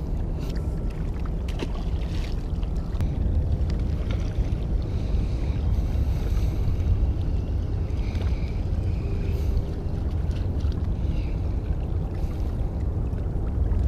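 Steady low rumble of outdoor background noise on a GoPro's microphone, with a few faint clicks.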